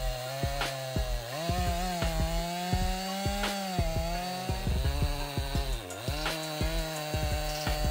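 Two-stroke gas chainsaw running at high throttle as it cuts through a thick log. Its engine pitch rises and sags with the load, with a short dip about six seconds in.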